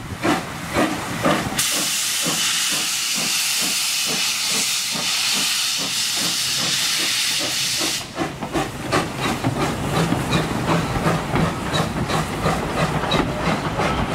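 Narrow-gauge steam locomotive pulling away, its exhaust beats under a loud, steady hiss of steam from the open cylinder drain cocks. About eight seconds in the hiss stops, and the wagons roll past with rhythmic wheel clicks over the rail joints and a low rumble.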